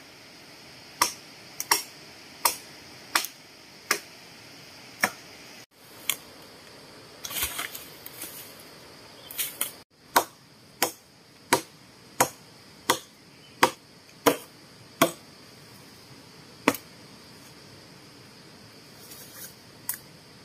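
Sharp knocks at a steady pace, about three every two seconds, in two runs: one just after the start and one about halfway through, with a rustle between them. A steady high insect buzz lies underneath.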